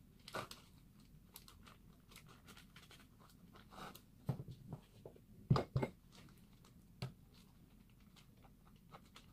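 A spoon scooping thick mascarpone cream from a bowl and spreading it into a dish: soft, sticky sounds with scattered light knocks of the spoon against the bowl, the loudest a quick pair about halfway through.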